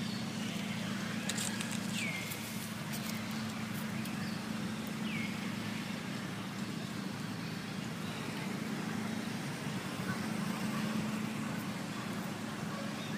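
A steady low drone, like a distant motor, with a few faint short high chirps falling in pitch about two and five seconds in.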